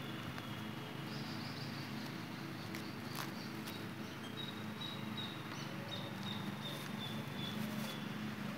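Steady outdoor background noise with a low hum, a faint thin high whistle-like tone in the second half, and a few light clicks and knocks as the camera is carried and turned.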